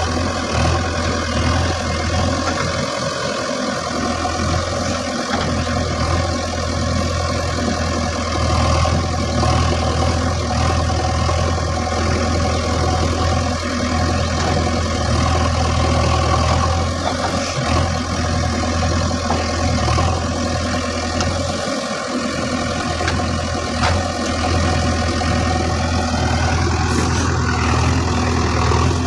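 Heavy diesel vehicle engine running steadily at a constant speed.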